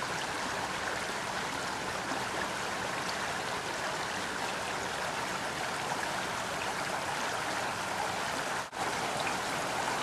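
Shallow stream water running steadily over gravel and rocks, with one brief dropout near the end.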